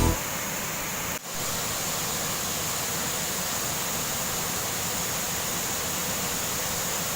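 Waterfall rushing steadily, a constant wash of falling water that breaks off for a moment about a second in.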